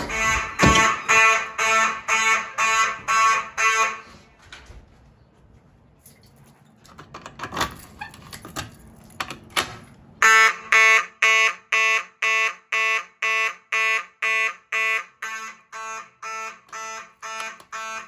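Building fire alarm horns sounding in march-time code, a pulsed blare about twice a second. The code was chosen so the alarm carries through walls and over background noise. The pulsing drops away about four seconds in, leaving a few knocks, then comes back loud about ten seconds in.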